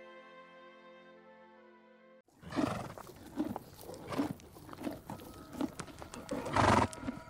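Soft sustained music fading out, then a sudden change to a series of rough, breathy animal calls coming about once every second, the loudest near the end.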